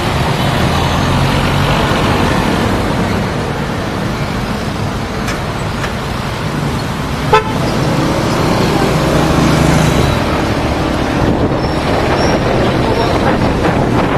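Road traffic and vehicle engine noise picked up by an action camera's built-in microphone, a steady rumble and hiss, with a single sharp click about seven seconds in.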